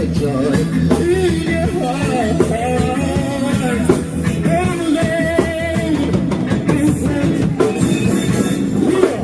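Live reggae band performance, with a singer's voice carried over drums and guitar.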